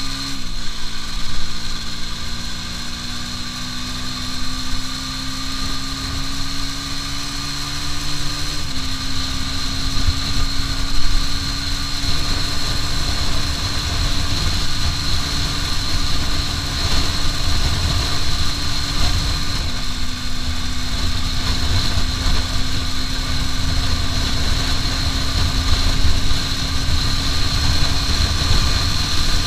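Aprilia RS4 125's single-cylinder four-stroke engine running hard at speed, its pitch climbing slowly, jumping up about nine seconds in, then dropping about twenty seconds in and climbing again. Heavy wind buffeting on the microphone runs underneath.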